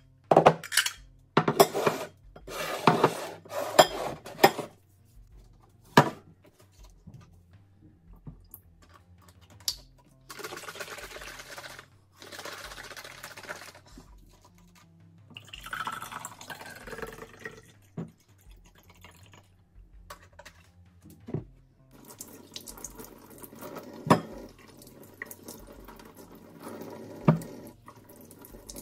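Ceramic bowls clinking and knocking together at a stainless steel sink, a few single knocks, then liquid poured into a glass. About three quarters of the way through, the kitchen tap starts running into the sink over hand-rinsed tomatoes, with a couple of knocks.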